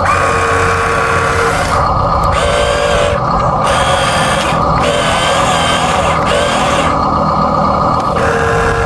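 Small electric motors and gearing of a Huina 1583 RC bulldozer running. It makes a steady mechanical whine, with tones and a hiss that switch in and out every second or so.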